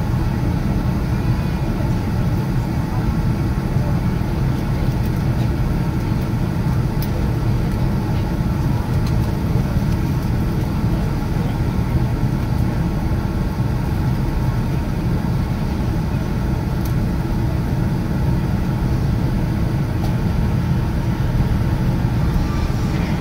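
Steady low rumble of a Boeing 787-9 airliner's engines at taxi power, heard from inside the passenger cabin.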